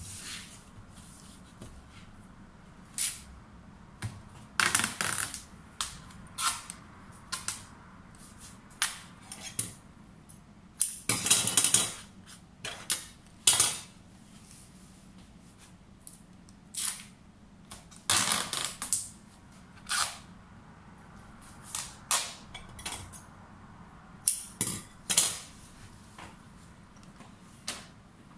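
Adhesive tape being pulled off its roll and pressed onto floral foam bricks: short rips and a few longer, drawn-out pulls, mixed with light clicks and taps of handling.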